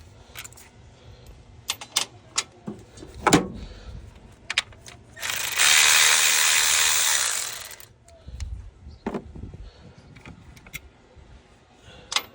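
Scattered clicks and knocks of tools and bolts being handled. Then, about five seconds in, an electric ratchet with a deep 10 mm socket runs for about two and a half seconds, backing out a 10 mm bolt.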